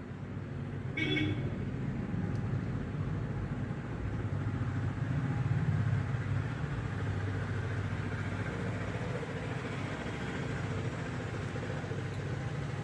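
Spice paste frying and bubbling in oil in a kadai as it is stirred, over a steady low hum. A brief higher-pitched sound comes about a second in.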